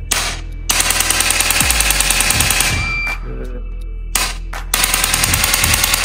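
A handheld electronic chiropractic adjusting instrument fires two bursts of rapid clicking thrusts into the spine, about ten a second, each lasting about two seconds. The first burst ends in a short high beep about three seconds in, which signals that the joint is moving in sync with the ones around it.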